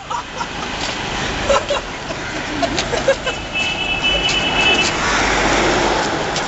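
Road traffic on a city street: a steady hum of passing vehicles, with a horn held for about a second and a half midway and a vehicle passing more loudly near the end.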